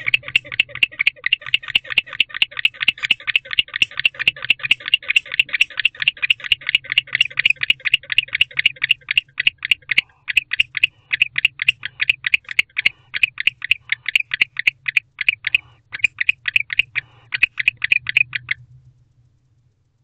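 Male barn owl calling in a rapid, even series of short high-pitched notes, about five a second. The series runs steadily at first, then breaks into shorter runs with brief pauses, and stops shortly before the end.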